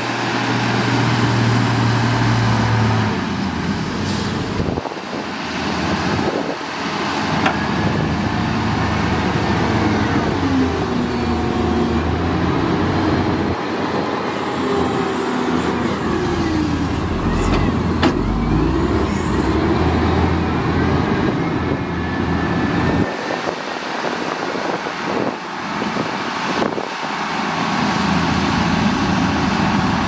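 Diesel engines of a ten-wheel dump truck and a wheel loader running, revving up and down in the middle stretch as the machines work.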